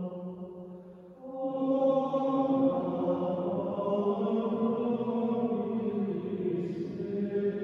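Choir of monks chanting Vespers in unison. There is a short pause about a second in, then the chant resumes on held notes.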